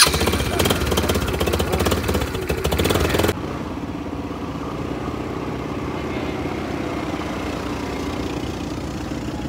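150cc automatic ATV engine started and running loudly close up, with a rapid even firing beat. About three seconds in it gives way abruptly to a quieter, steady hum of ATV engines idling.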